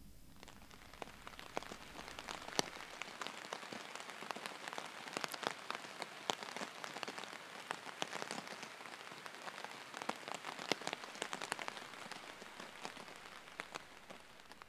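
Heavy rain falling, with many separate drops striking close by. It swells in over the first second or two and stops abruptly at the end.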